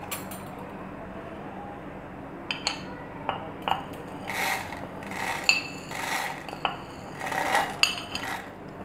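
A metal spoon scrapes whole spices off a ceramic plate and clinks against a small glass jar as the seeds are tipped in. The irregular scrapes and clinks, some with a short glassy ring, start about two and a half seconds in.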